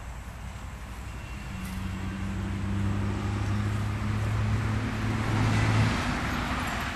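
A motor vehicle's engine running with a steady low hum that grows louder over a few seconds along with a rising hiss, then drops away about six seconds in, as a vehicle passing by.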